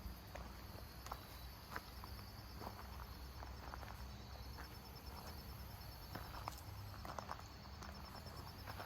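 Insects chirping in a faint, fast, evenly pulsed high trill, with scattered footsteps.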